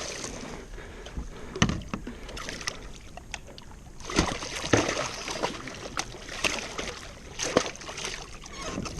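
Water sloshing around a kayak, with irregular sharp knocks and splashes, while a hooked tarpon is being landed alongside.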